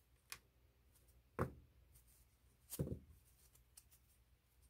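Small plastic and metal parts of an RC model-car axle being handled: a light click, then two soft knocks about a second and a half apart.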